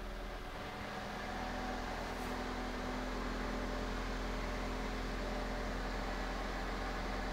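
A Toyota Corolla's 1.8-litre four-cylinder engine idling steadily just after an oil change, running to circulate the fresh oil through the engine before the level is checked.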